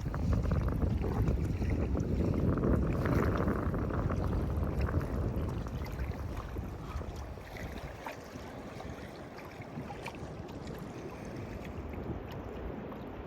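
Lake Ontario surf washing in, a wave swelling louder over the first few seconds and then easing, with wind rumbling on the microphone.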